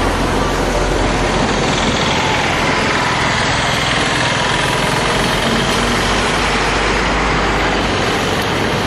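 Road traffic of heavy coal-hauling tipper trucks and motorcycles, their engines running in a steady, unbroken noise with a low hum underneath.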